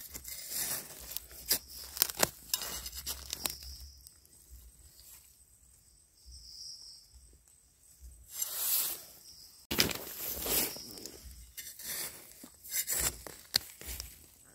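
Close rustling and crackling of dry leaves, grass and soil, with sharp snaps, as wild mushrooms are picked from the forest floor by hand. There is a quieter stretch in the middle, a loud rustle about eight seconds in and a sharp snap just after.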